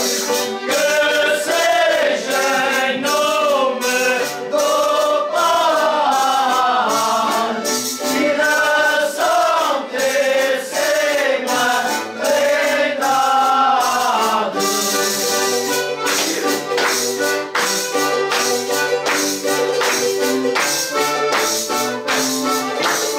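Men of a foliões folk group singing together to a tambourine, an accordion and a small strummed guitar. About two thirds of the way through the singing stops and the instruments play on, with the tambourine beating a steady rhythm and hands clapping.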